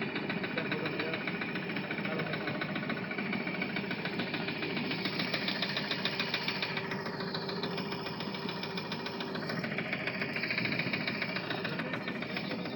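Ride-on miniature train running steadily, with a fast, even mechanical clatter.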